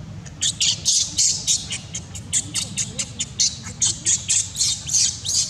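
Newborn baby macaque screaming in rapid, high-pitched squeals, about four a second, starting about half a second in.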